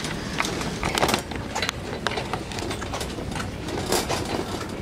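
Metal shopping cart being pushed across a store floor, its wire basket rattling and its wheels clattering, with many small irregular clicks and knocks.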